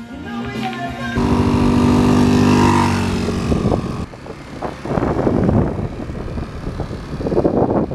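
Motor scooter engine running steadily, its pitch falling a little just before it changes, then wind buffeting the microphone over the scooter from about four seconds in.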